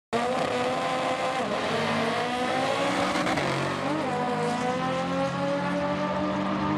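V8 drag car accelerating hard down the strip, its engine note climbing and dropping back twice as it shifts gears.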